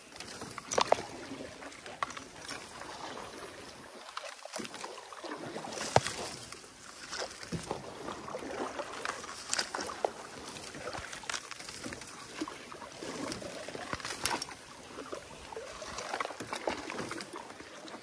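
Wild rice being knocked from a canoe: wooden knocking sticks swishing through and tapping the rice stalks, with the stalks rustling and grain dropping into the hull. The sound comes as irregular sharp clicks and swishes, a few louder taps standing out.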